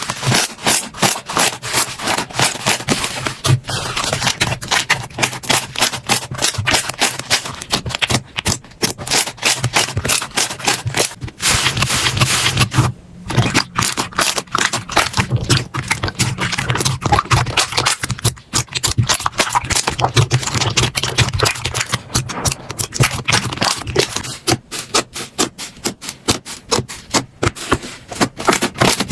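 Slime being squeezed and pressed by hand, giving a fast, uneven run of crackling clicks and pops.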